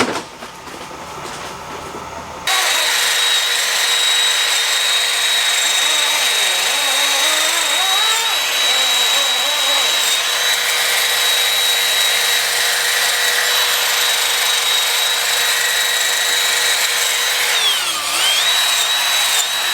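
A power tool starts abruptly and runs steadily with a high whine, briefly slowing and picking back up near the end.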